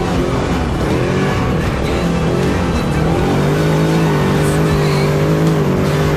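Off-road race vehicle's engine running, its pitch wavering slightly and holding steadier from about three seconds in, with music underneath.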